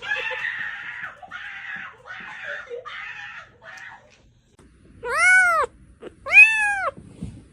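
A cat meowing twice in a row, each meow rising and then falling in pitch. Before the meows come four or five short, breathy, hissy noises.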